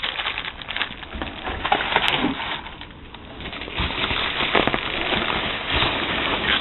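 Packing material rustling and crackling as items are dug out of a box by hand, with a few sharper clicks and knocks among the rustle.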